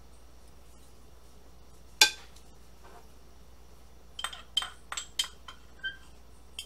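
Metal knife clinking and scraping against a cup and a mixing bowl while getting peanut butter out: one sharp clink about two seconds in, then a quick run of short ringing clinks between about four and six seconds in.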